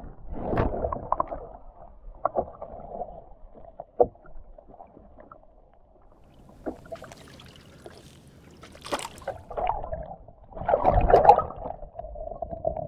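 Muffled water sloshing and gurgling heard underwater as a snapper is held in the sea and moved to revive it for release, with a few knocks. The splashing grows louder near the end.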